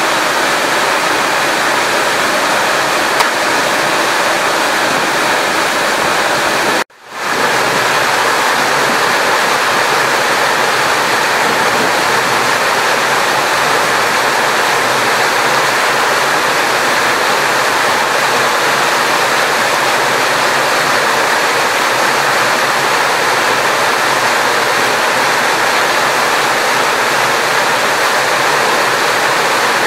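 Fast-flowing muddy floodwater rushing and churning steadily, briefly cutting out about seven seconds in.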